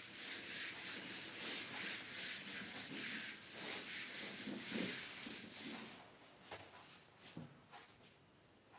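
Whiteboard eraser wiping across a whiteboard in repeated rubbing strokes, stopping about six seconds in; a few faint knocks follow.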